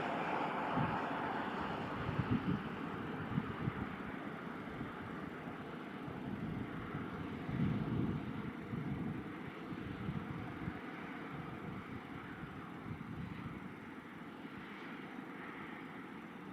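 Car on the move: steady engine and road noise with uneven low rumbling, slowly getting quieter toward the end.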